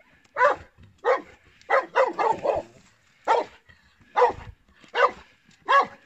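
Search-and-rescue dog barking repeatedly, about ten loud barks, mostly single ones under a second apart with a quick run of four in the middle. It is the bark alert a rescue dog gives at the spot where it has found a hidden person.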